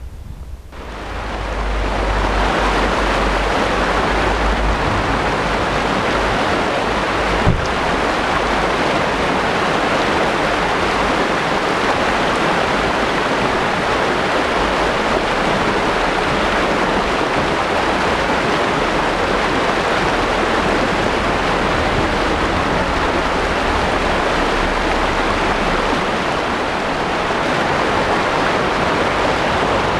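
Muddy storm floodwater rushing down a path and through a stone-walled channel. It is a loud, steady rush that sets in about a second in, with one small click near the middle.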